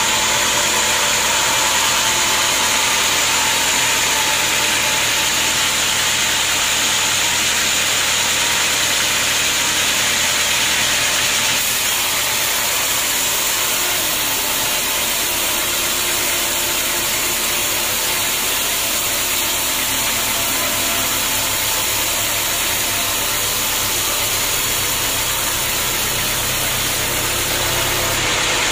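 Band sawmill running, its blade cutting lengthwise through a teak log: a steady, even saw noise with a high whine over a low motor hum. The tone shifts slightly about twelve seconds in.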